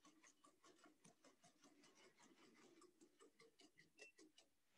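Quadruped robot dog walking slowly, heard as faint rapid ticking at about eight ticks a second.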